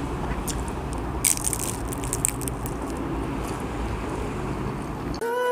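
Crisp crunching as a fried banana spring roll (popia pisang) is bitten and chewed close to the microphone: a few sharp crackles, most of them about a second and a half in, over a steady low hum. Music starts just before the end.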